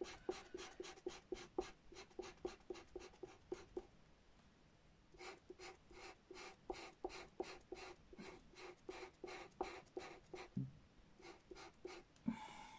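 Pastel pencil scratching on paper in quick, even strokes, about five a second, faint. The strokes pause briefly near the middle, and there is a soft knock near the end.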